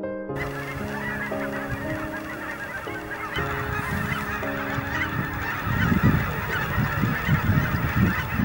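A large flock of geese honking and calling all at once, a dense, continuous clamour of many birds that cuts in just after the start. Soft piano music holds notes underneath, and an uneven low rumble grows louder through the second half.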